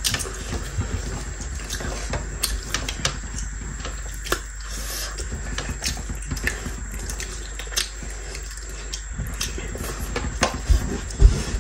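Mukbang eating sounds: wet chewing and lip smacks as rice with kinema is eaten by hand, with many small, irregular clicks and smacks.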